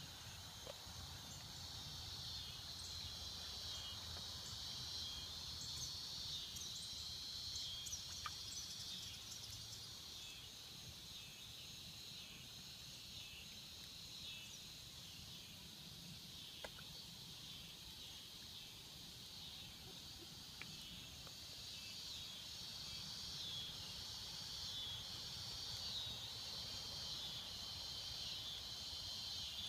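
Cicadas buzzing in chorus, a steady high drone that pulses and wavers without a break, over a faint low rumble, with a few small clicks.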